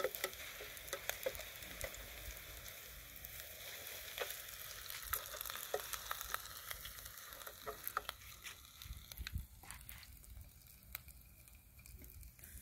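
Rice balls deep-frying in hot oil in an aluminium pot, a steady sizzle, with scattered light clicks of a fork turning them against the pot. The sizzle dies down over the last few seconds.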